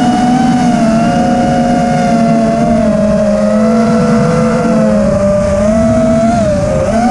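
FPV quadcopter's brushless motors and propellers whining in flight, the pitch drifting slowly up and down with throttle and dipping near the end, over a rushing noise.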